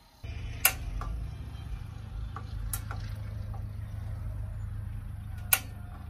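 Three sharp clicks a couple of seconds apart, typical of a propane griddle's igniter being worked to light the burner, over a steady low engine rumble that starts suddenly just after the beginning.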